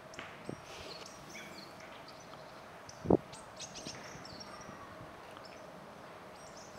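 Small birds chirping and calling, many short high notes and little gliding whistles scattered through, over a faint outdoor background. One dull, low thump stands out about three seconds in.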